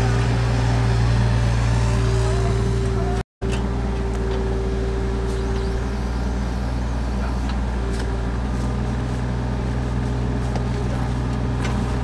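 Mini excavator's diesel engine running steadily at a constant low hum, with a steady whine above it, as the machine works its bucket. A few faint clicks of shovel work come through, and the sound cuts out completely for a moment about three seconds in.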